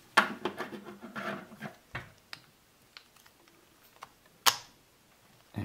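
Plastic parts of an R5-D4 action figure clicking and rubbing as fingers work its legs: a run of small clicks and handling rustle in the first two seconds, then one sharp click about four and a half seconds in as a leg joint snaps into place.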